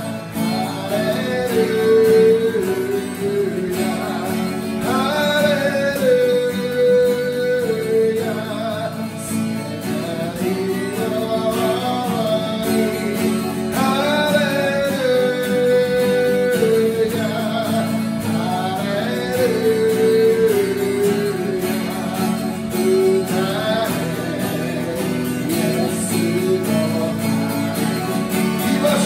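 A man singing a Japanese worship song, with repeated 'Hallelujah' lines, to his own acoustic guitar accompaniment. The melody moves in held notes that step up and down.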